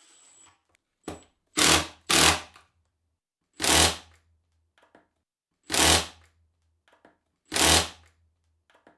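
Cordless drill boring holes into plywood in short trigger pulls: a brief blip, then five runs of about half a second each, one roughly every two seconds.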